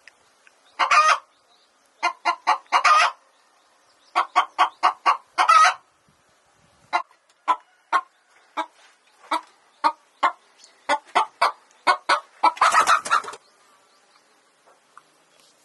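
Domestic hen clucking in quick runs of short calls, with a longer, louder squawk near the end.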